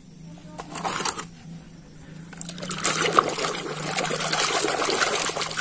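Muddy water sloshing and splashing in a basin as a toy car is scrubbed and rinsed by hand, a few brief splashes at first, then busy continuous splashing from about two seconds in.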